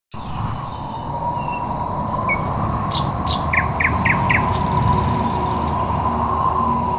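Small songbirds chirping, with a run of four quick falling notes and then a fast high trill lasting about a second, over a steady low background hiss.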